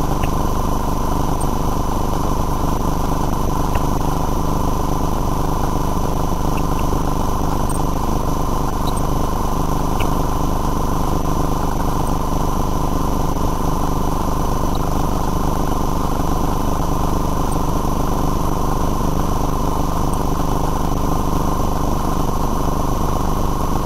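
Steady, unchanging machine drone with a steady whine on top, from the running sewer-inspection CCTV equipment.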